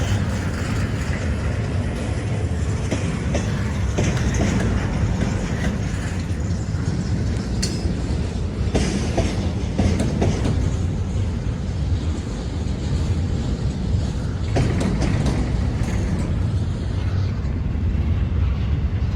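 Freight train cars rolling past steadily, a continuous rumble with wheels clicking over the rail joints.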